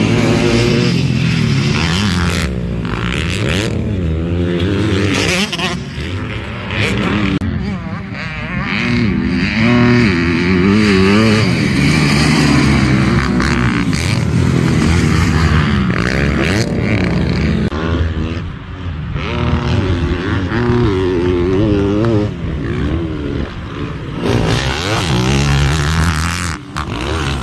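Motocross dirt bike engines revving hard and dropping off again and again as the bikes race around the track, the pitch climbing and falling with each throttle change.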